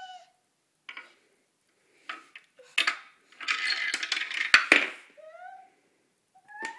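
Small toy car clattering down the wooden zigzag ramps of a toddler's car-ramp toy: a few scattered clicks, then a quick run of clicks and knocks about halfway through, ending in a sharp knock. A baby's short vocal sounds, gliding up and down in pitch, come in between.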